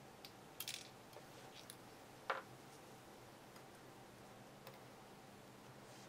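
Light metallic clicks and ticks of a steel pick working in a Sargent lock cylinder's housing as it is taken apart: a quick rattle of clicks under a second in, one sharper click a little over two seconds in, and a few faint ticks after.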